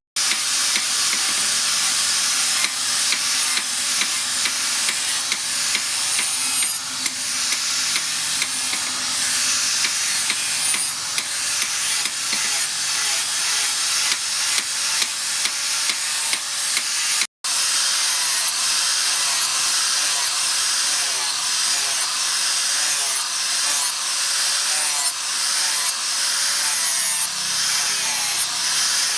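Rasping abrasive strokes on a steel knife blade, repeated steadily, as in filing or grinding the blade. The sound breaks off briefly a little past halfway and picks up again.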